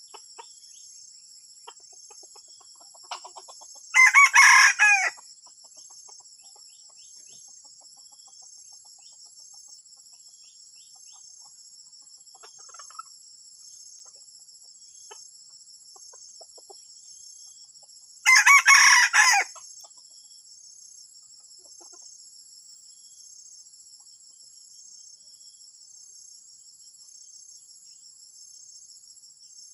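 Junglefowl cock crowing twice, each crow lasting about a second, the first about four seconds in and the second some fourteen seconds later. A steady high-pitched insect chorus trills behind it throughout.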